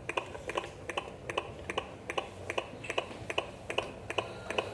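Fetal Doppler's speaker playing a simulated fetal heartbeat from a fetal Doppler simulator: a fast, regular train of sharp clicky beats, about four to five a second.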